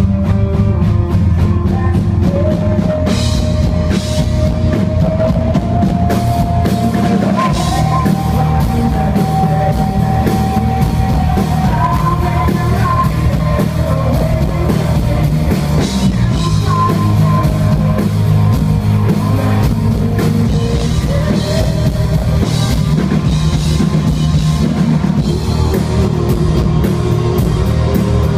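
Live rock band playing loudly: electric guitar over a drum kit, with a long held lead line that slowly rises in pitch.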